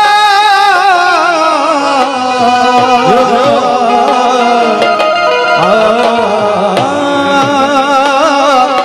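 Gujarati folk wedding-song music: a long wordless melody of held, wavering notes that slide between pitches, over a drum accompaniment.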